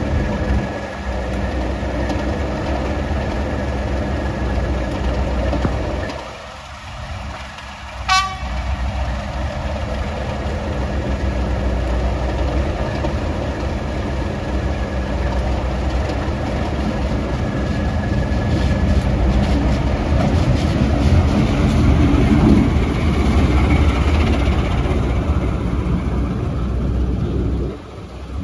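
Diesel locomotive engine running with a steady low hum, growing louder in the second half, with a brief sharp sound about eight seconds in.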